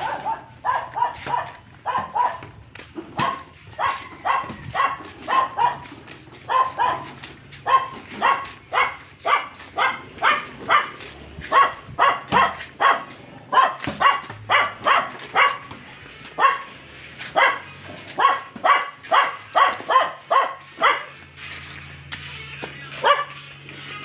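A dog barking over and over, about two to three barks a second, with a few short pauses. The barking stops a few seconds before the end.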